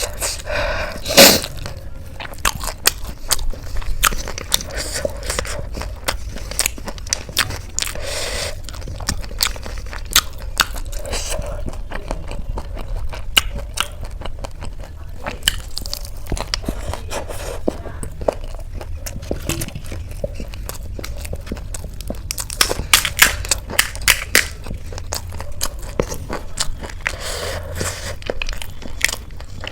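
Close-miked eating: crisp Indian street snacks being bitten and chewed, with dense, irregular crunching and crackling and the loudest crunch about a second in.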